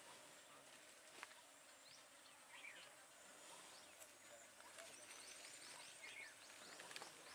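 Near silence: faint outdoor ambience with a few scattered bird chirps, including a quick run of descending notes a little past the middle, over a thin steady high insect whine.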